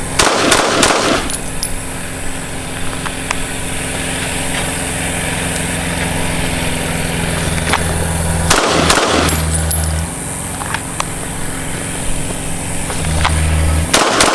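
Three pistol shots from a CZ P07, several seconds apart, each ringing out for about a second. The pistol is firing again after its firing pin was replaced. A steady low rumble runs underneath.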